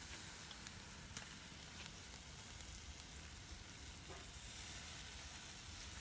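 Fish on bamboo skewers grilling over hot charcoal, a faint steady sizzle with a few small clicks, as scallion oil is spooned over the fish and drips onto the coals.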